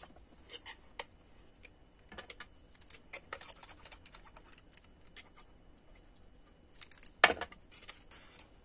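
Paper cardstock box being handled and its glued tabs pressed into place: faint rustling and scattered light clicks of card against card, with one louder sharp crinkle or knock about seven seconds in.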